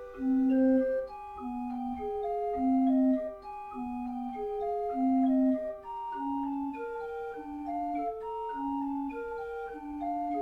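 Wooden-piped organ playing a repeating peal figure that imitates ringing church bells: a lower note sounds about once a second beneath shifting upper notes.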